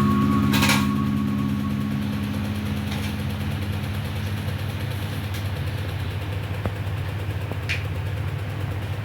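A steady low mechanical hum, like a small motor running, with a few light clicks; a musical tone fades out over the first couple of seconds.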